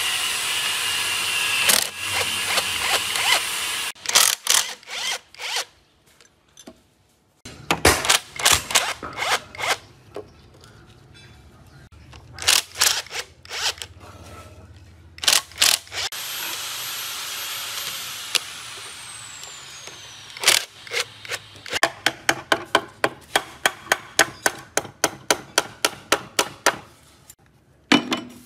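A power tool driving bolts out of an old truck engine's gearbox casing. It runs in bursts, and after one run it spins down with a falling whine. Between the bursts there are sharp metal clicks and taps, with a long run of about four clicks a second near the end.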